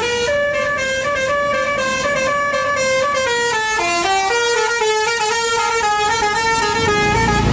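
Telolet basuri multi-tone musical horn on a tour bus playing a tune, its loud held notes stepping up and down in pitch. A low rumble swells near the end as the bus comes close.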